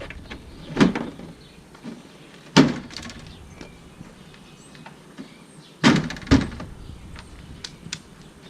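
Plastic front bumper cover being pushed and knocked into place on a Jeep Patriot, giving four sharp knocks and snaps: one about a second in, one near three seconds, and two close together around six seconds.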